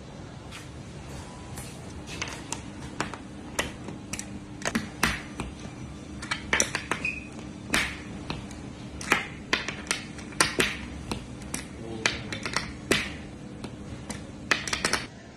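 Irregular sharp metallic clicks and taps, about one or two a second, as the adjusting screw in the bracket of a steel door-straightener bar is worked by hand, tensioning the bar to pull a warped door panel straight.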